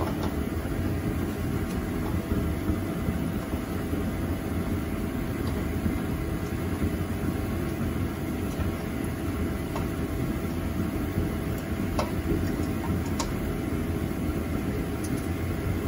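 A steady low machine hum, with a few faint light clicks as a muffler mount bolt is turned out by hand.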